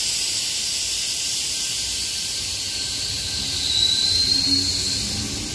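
Sydney Trains Tangara electric train departing, a loud, high hiss with a thin whine that dips and climbs back up about three and a half seconds in, over a low rumble.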